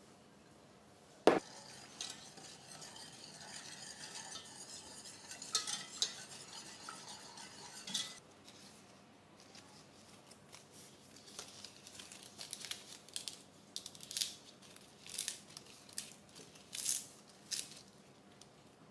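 Kitchen utensils knocking, clinking and scraping against a pot or bowl: one sharp knock about a second in, then scattered short clinks and scrapes that come more often in the second half.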